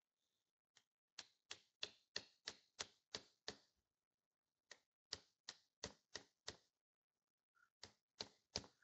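Light, quick taps of a steel-faced ball-peen hammer driving a pin into a 1953 Allis-Chalmers B hydraulic pump. The taps come at about three a second in three runs: about eight, a pause, six or seven more, a pause, then four near the end.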